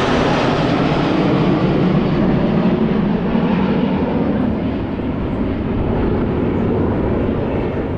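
Airplane passing overhead, a loud steady engine noise that falls slightly in pitch and eases off in the second half.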